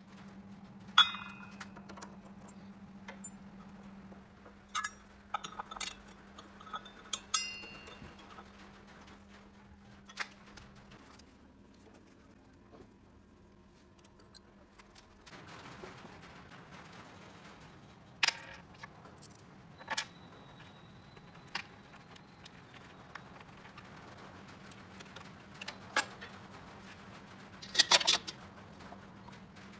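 Scattered light knocks and clicks with a few short metallic clinks, over a faint steady hum.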